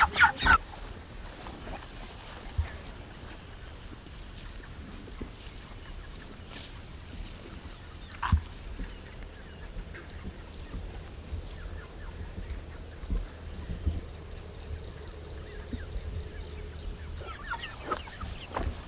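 Steady high-pitched drone of insects calling, over a low rumble, with a single sharp knock about eight seconds in. Chickens begin clucking near the end.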